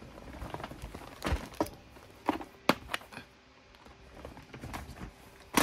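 A handful of knocks and clacks of clear plastic storage-jar trays being picked up and moved off a tabletop, the sharpest about two and a half seconds in, then a sharp click near the end.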